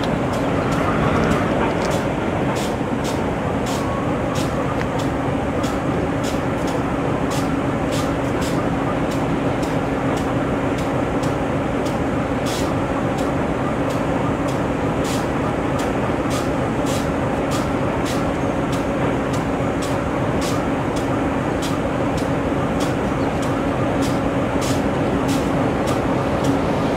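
GE B23-7 diesel-electric locomotive's 12-cylinder FDL engine idling steadily after start-up: an even low running note with a steady hum and regular sharp ticks.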